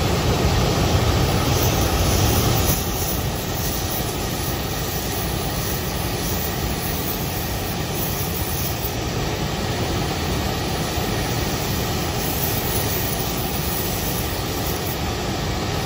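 Gas brazing torch flame burning with a steady rushing noise, a little louder for the first two or three seconds, while a diamond segment is silver-brazed onto a steel saw blade core.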